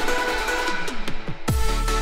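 Electronic background music with a steady beat. A few falling swoops lead into a heavy bass that comes in about one and a half seconds in.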